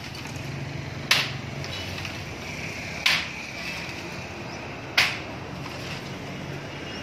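Heavy long-handled hammer striking a masonry house wall during demolition: three sharp blows about two seconds apart, each with a short ring.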